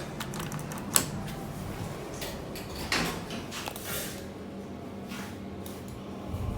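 A Schindler elevator's sliding doors closing: a couple of clicks, then the door panels sliding shut about three seconds in.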